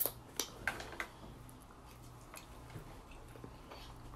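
Wet mouth smacks as sauce is sucked off the fingers, four sharp ones in the first second, then quieter chewing of a mouthful of seafood boil.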